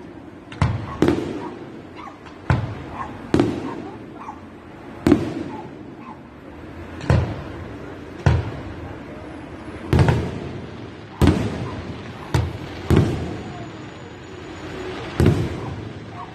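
Aerial fireworks shells bursting in the sky: about a dozen sharp bangs, one to two seconds apart, each trailing off in an echo.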